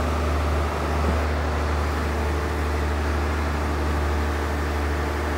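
Motor cruiser's engine drone heard from inside the cabin while under way: a steady, low hum with a layer of rushing noise over it.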